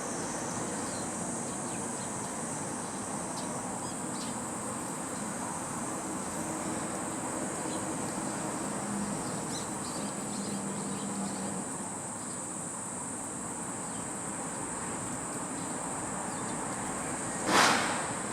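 Steady high-pitched insect drone over a background of outdoor ambient noise, with a brief loud rush of noise near the end.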